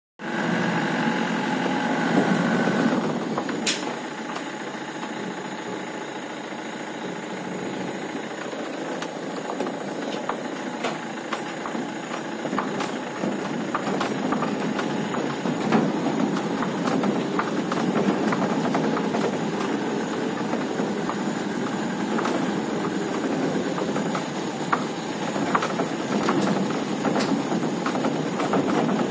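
Mahindra Bolero pickup driving on a rough, stony dirt track, heard from the load bed: the engine runs steadily while the body and bed rattle and knock over the bumps. It is louder for the first three seconds.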